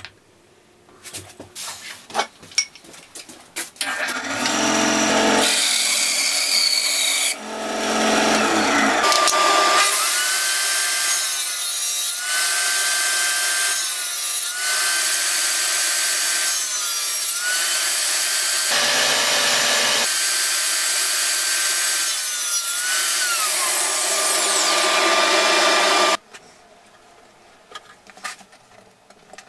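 Table saw running and ripping thin oak strips, its steady whine dipping briefly in pitch several times as the blade takes the cuts, then cutting off suddenly near the end. Before it, a few seconds of light rubbing and knocks from hand sanding and handling the wood; after it, faint clicks of handling small pieces.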